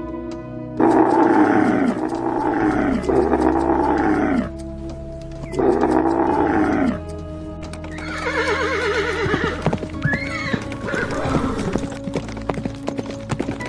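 Several loud animal calls over soft background music: three drawn-out calls in quick succession about a second in, another about five and a half seconds in, then a quavering call that falls in pitch, followed by a run of sharp clicks.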